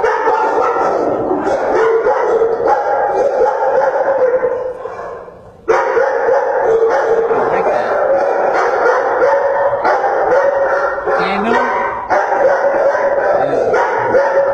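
Many shelter dogs barking together in the kennels, a continuous layered din. It sags about four to five seconds in and comes back abruptly.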